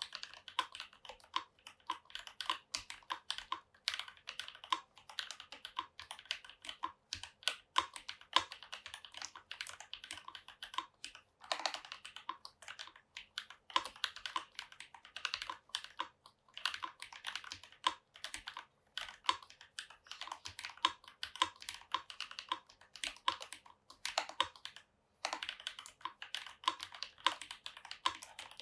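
Typing on a Rama Works U80-A mechanical keyboard with Holy Panda tactile switches and GMK doubleshot keycaps: a steady, fast run of keystroke clacks, with a short pause near the end.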